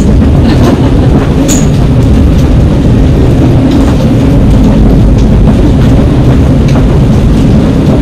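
Gale-force wind of 35 knots and more buffeting a sailing catamaran's canvas helm enclosure, a loud, steady low rumble with the rush of the sea, broken by a few small clicks and rattles.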